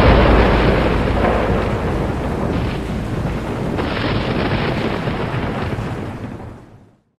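A deep rumbling boom, like a thunderclap or explosion sound effect, dying away slowly after the closing music and fading out to silence about seven seconds in.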